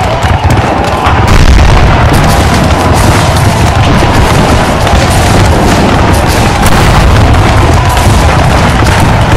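Battle sound effects: continuous crackling gunfire and booming cannon over a heavy low rumble, with dramatic background music running underneath.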